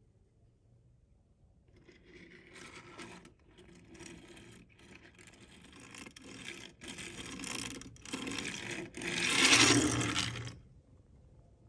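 Toy pickup truck wheeled across the wooden table: a scraping whir in a run of strokes with short breaks, growing louder and loudest near the end, then stopping.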